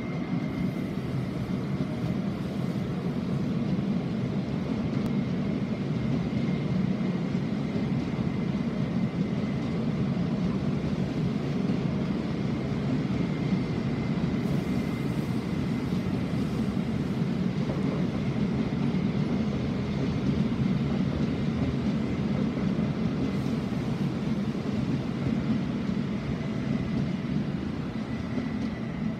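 SOB Traverso electric multiple unit (Stadler FLIRT) pulling out and rolling slowly past: a steady rumble of wheels and running gear on the track, with a thin steady high tone running above it.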